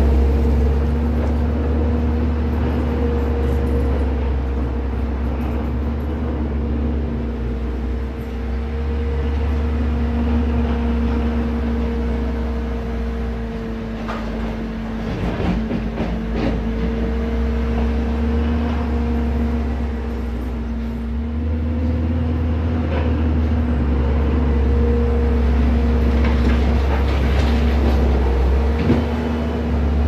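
Bobcat compact track loader's diesel engine running steadily with a constant hum and low rumble as it works its bucket through dirt and rubble. A cluster of knocks and scrapes comes about halfway through, and a single knock near the end.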